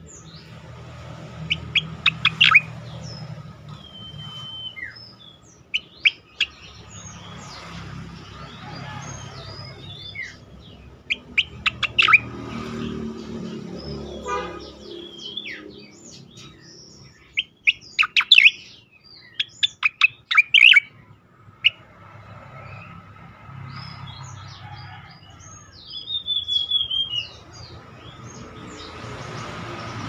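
Striated grassbird (cica koreng) singing: bursts of rapid, sharp clicking notes mixed with short clear whistles, phrase after phrase with brief pauses between. One phrase near the middle is an evenly spaced run of notes, and a chattering whistled phrase comes near the end.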